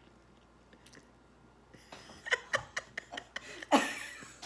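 A toddler's chewing mouth noises close to the microphone: a quick run of wet smacks and clicks starting about two seconds in, then one louder noisy puff of breath near the end.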